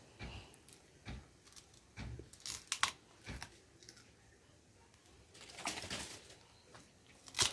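Sugarcane being bitten, torn with the teeth and chewed: scattered crunches with bursts of ripping and crackling, strongest near the middle and again near the end.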